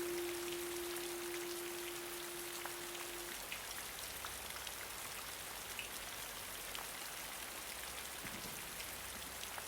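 Steady rain pattering, with scattered drops ticking. A last held guitar note rings under it and stops about three seconds in.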